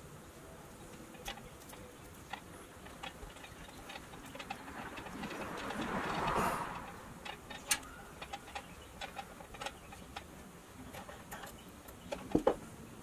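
Small metal clicks and ticks from a T-handle hand tool being worked against a pressed-steel toy trailer body, scattered irregularly. A rustle swells and fades about six seconds in, and a few sharper, louder clicks come near the end.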